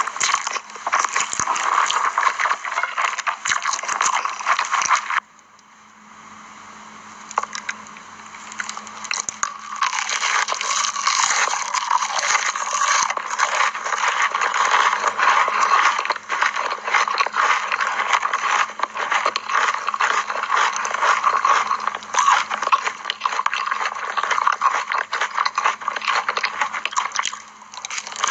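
Dense scraping and crackling while instant noodles are prepared. It drops to a much quieter stretch about five seconds in, and comes back loud again around ten seconds in.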